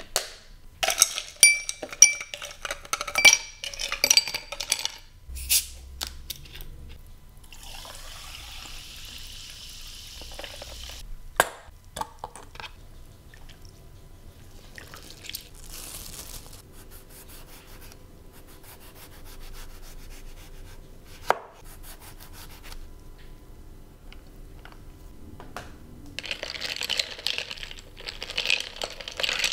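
Ice cubes clinking into a tall glass, then soda water poured over them with a fizzing hiss. Near the end the iced drink is stirred, the ice rattling against the glass.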